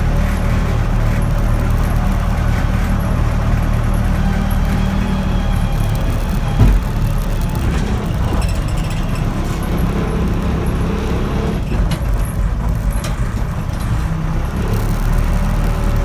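1980 Case 580D backhoe's four-cylinder engine running steadily, heard from the operator's seat as the machine drives along. One loud clunk comes about six and a half seconds in, with a few light rattles later.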